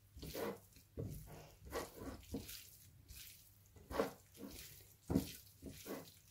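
Hands squeezing and turning cubes of raw lamb liver, wet with vinegar and spices, on a plate: faint, irregular wet squelches.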